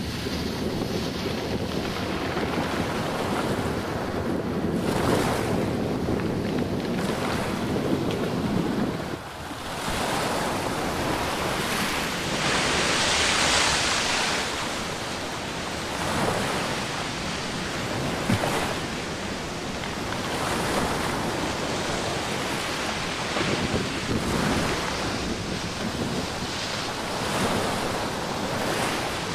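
Sea surf washing onto a sandy beach in repeated swells, one louder wash about halfway through. Wind rumbles on the microphone and drops away about nine seconds in.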